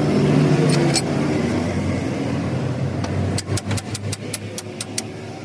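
A vehicle engine running steadily, growing quieter. Over the last two seconds a quick, even run of about ten sharp clicks sounds, roughly six a second.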